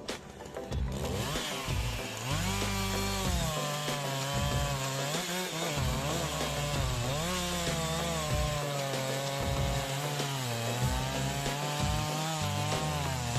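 Chainsaw running under load as it cuts wood, its engine pitch sagging and climbing back again several times.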